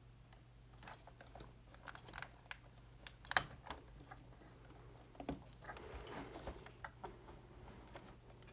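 Light clicks and handling noises of a CPU cooler being pressed down and clipped onto its mount, with one sharper click about three and a half seconds in and a brief rustling hiss near six seconds.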